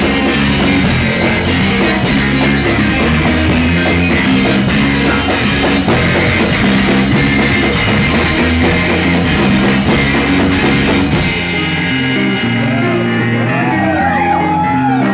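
Math rock band playing live: two electric guitars, electric bass and drum kit, loud. About three quarters of the way through, the drums drop out, leaving guitars and bass, with notes bending up and down near the end.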